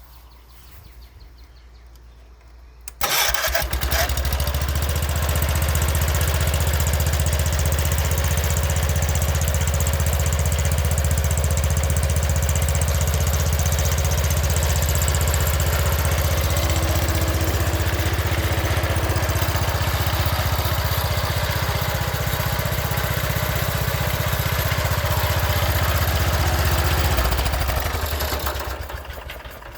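Freshly rebuilt single-cylinder Kohler engine of a 1976 Wheel Horse C120 garden tractor starts suddenly about three seconds in and runs steadily. Near the end it is shut off and dies away.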